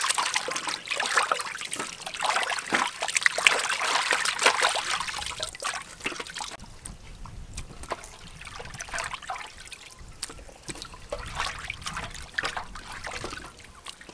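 Water splashing and trickling as hands wash raw chicken wings in a large metal basin. About six and a half seconds in it gets much quieter, leaving scattered small handling sounds.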